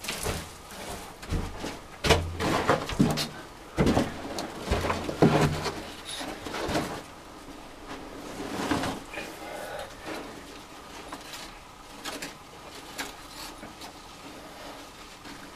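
Stones and loose soil being scraped, shifted and knocked against each other by hand, with scuffing footsteps on the cave floor; the knocks and scrapes are loudest in the first half and fall to occasional clicks later.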